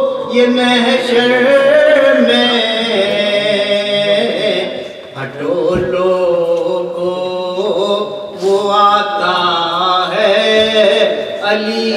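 A man's voice singing a Shia devotional Urdu recitation unaccompanied, in long, drawn-out melodic phrases with short breaks between them.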